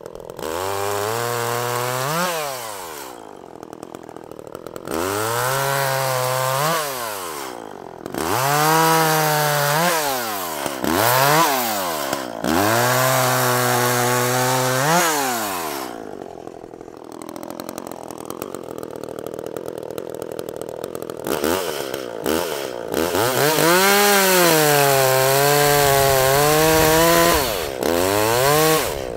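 Echo CS-400 two-stroke chainsaw cutting limbs and a log of a fallen tree. It revs up to full throttle for each cut, holds there while the pitch sags and wavers under the load, then drops back to idle between cuts, about eight times over.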